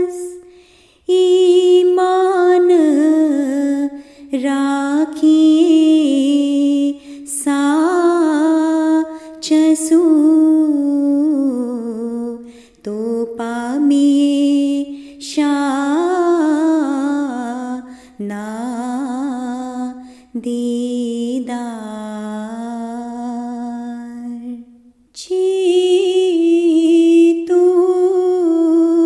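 A single voice chanting a devotional tasbih without accompaniment, in sung phrases a few seconds long separated by brief pauses.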